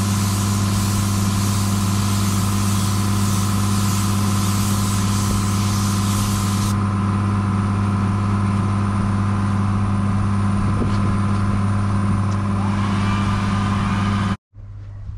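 A motor runs steadily with a strong low hum. Over it is a loud spray of air hiss, typical of a paint spray gun applying colour, which stops abruptly about halfway through while the hum continues. The sound cuts off sharply just before the end.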